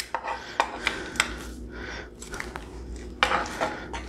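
Racks of baby back ribs being pushed and fitted into an Instant Pot's inner pot: meat and bone rubbing and knocking against the pot, with scattered light clicks.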